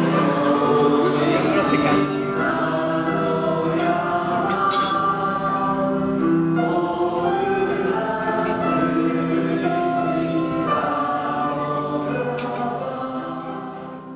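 A group of voices singing a song together with music, in long held notes, fading out near the end.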